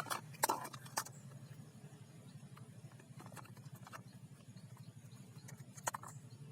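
Faint steady low hum with a few light clicks and taps, the first two about half a second apart near the start and another near the end.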